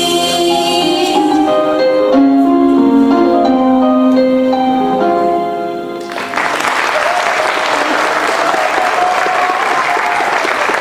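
The song's closing piano notes play out and end about six seconds in. Audience applause then breaks out and continues.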